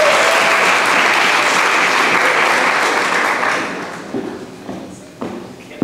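Audience applauding, the clapping dying away about four seconds in, followed by a few knocks of footsteps on the stage.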